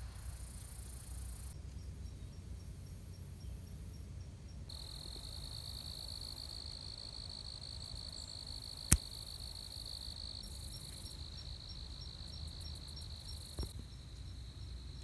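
A cricket trilling steadily in one high, even tone, starting about five seconds in, with a brief break partway. One sharp click stands out about nine seconds in, with a fainter click near the end.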